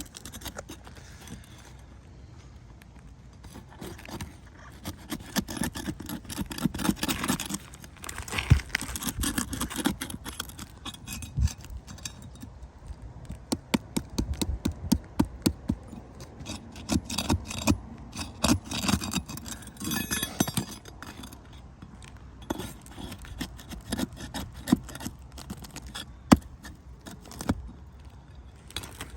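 Irregular scraping, clicking and small metallic clinks of hand tools prying stuck asphalt ridge cap shingles off a roof and working their nails loose, in uneven spells.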